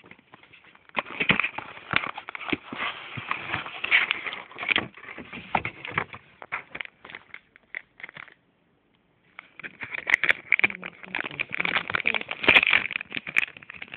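Irregular rustling, clicks and knocks of hands taking a PCI video card out of its packaging, close to a phone's microphone. The sound drops out completely for about a second past the middle.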